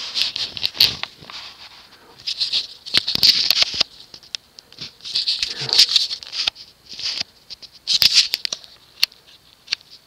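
Scratchy rustling and scraping with scattered sharp clicks, coming in several irregular bursts about a second long; handling noise, with the fan not yet running.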